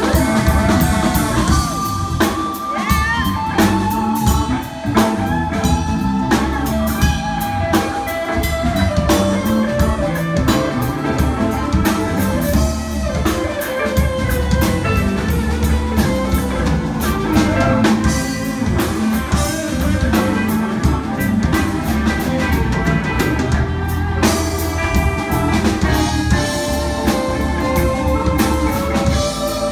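Live band playing an instrumental passage: an electric guitar plays a lead line with bent, gliding notes over bass guitar and a steady drum-kit beat.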